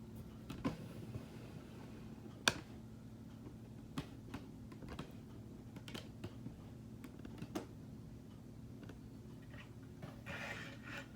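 Light, irregular plastic clicks and ticks from a K'nex model carnival ride turning on its hand crank, one sharper click about two and a half seconds in, over a faint steady low hum.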